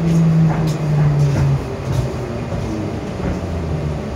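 Moscow 2024 (81-775.2) metro train braking into a station: the low hum of its electric traction drive steps down in pitch, with a few wheel clicks, and the noise eases off as the train slows.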